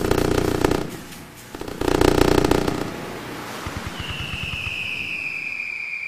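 Fireworks going off: two loud crackling bursts of about a second each, then a long high whistle that slowly falls in pitch, starting about two-thirds of the way in.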